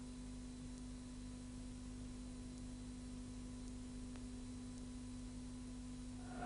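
Faint, steady low electrical tone with mains hum beneath it, unchanging throughout; no crowd or commentary.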